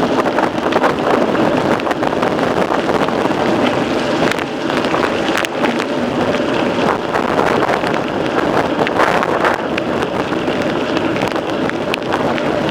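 Mountain bike being ridden over a trail: steady wind rush on the microphone over the tyre noise, with a constant run of small rattles and clicks from the bike.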